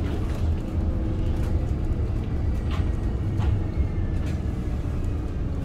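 Inside a moving city bus: the steady low rumble of the engine and road, with a few short knocks from the body.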